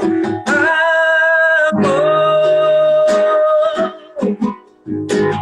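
A man singing a Portuguese worship song to his own acoustic guitar. He holds one long sung note for about three seconds, then strums a few guitar chords near the end.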